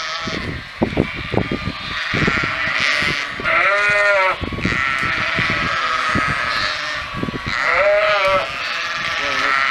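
A flock of Targhee ewes and lambs bleating in chorus, answering the call to come in, with two loud, long bleats about four and eight seconds in. A few low thumps in the first two seconds.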